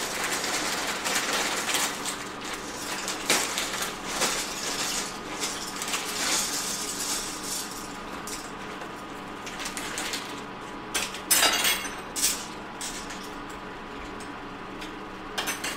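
Kitchen cookware being handled as dry pasta goes into a pot of water: a dense rattling hiss with many small clicks through the first half, then a few sharp metal clatters near the end.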